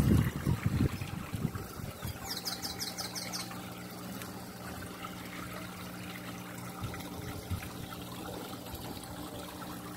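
Water trickling steadily into a koi pond over a steady low hum. A few low bumps come in the first second, and a brief, high, quickly repeated chirping trill comes about two and a half seconds in.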